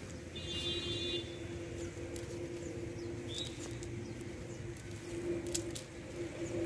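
A steady engine hum, with short bird chirps about a second in and again midway, and faint ticks of barefoot steps on the grassy bank.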